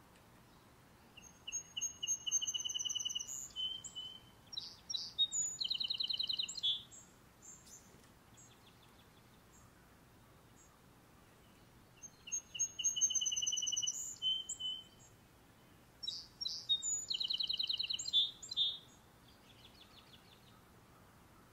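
A songbird singing the same long song twice, about ten seconds apart. Each song is a run of fast, high trills that jump between pitches and lasts around six seconds.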